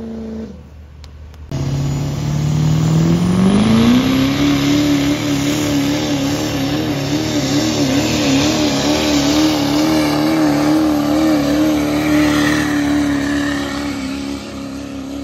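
Diesel pickup truck pulling a weight-transfer sled under full load. About a second and a half in, the engine revs up over a couple of seconds, then holds at high revs with a wavering pitch. It eases off near the end.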